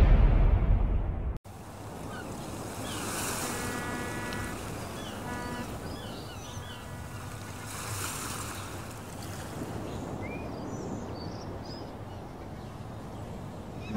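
A music sting ends abruptly about a second and a half in. Then comes a seaside ambience: waves washing in slow swells, with birds chirping and calling, including a few short honking calls.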